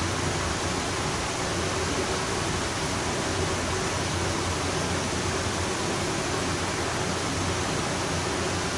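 Steady, even rushing noise of an electric fan running, with a low hum underneath.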